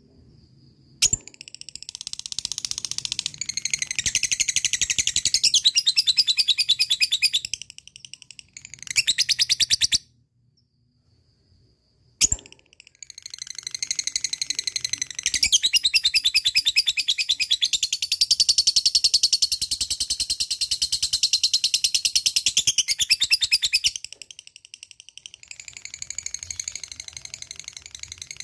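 Blue lovebird singing 'ngekek': long, very rapid, high-pitched chattering trills delivered in bouts with short pauses between them. There is one bout of about six seconds, a short burst around nine seconds, and a long bout of about eleven seconds from twelve seconds in, which drops to a quieter chatter near the end.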